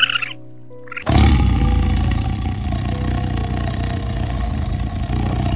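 A tiger roaring: a loud, rough, continuous roar that starts suddenly about a second in and carries on without a break, over background music.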